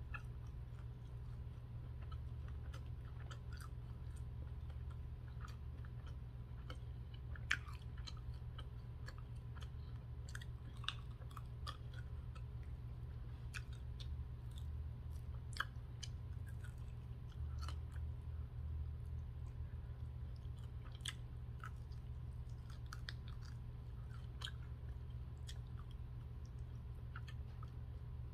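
A person chewing food close to the microphone, with scattered small crunches and mouth clicks, over a steady low hum.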